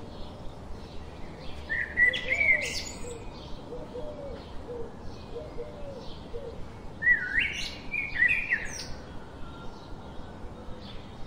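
Birds singing: two louder whistled phrases, one about two seconds in and another about seven seconds in, over a steady run of softer chirps and a few soft low notes.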